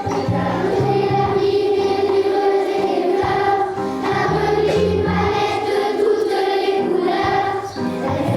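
Song with a choir singing over a steady instrumental accompaniment with a moving bass line.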